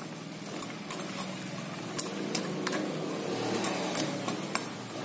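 Spiced fish broth simmering in an aluminium wok over lowered heat: a steady bubbling hiss with scattered small pops and clicks, over a low steady hum.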